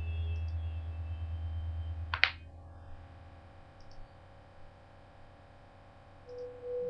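A low hum that stops with a single sharp click a little over two seconds in, followed by faint hiss.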